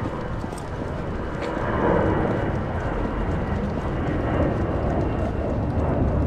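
Steady low rumble of a jet airliner passing over, swelling slightly about two seconds in.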